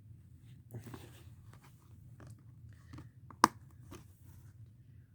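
Plastic Blu-ray case being handled: rustling and small clicks, with one sharp loud snap about three and a half seconds in.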